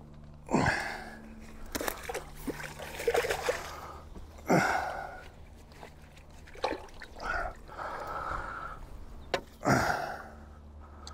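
Water splashing and trickling at the water's edge in short, irregular bursts, with three louder splashes spread through.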